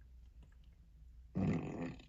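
"Lion fart" novelty sound effect played from an Alexa smart speaker: a loud, low, growling blast that starts suddenly a little past halfway.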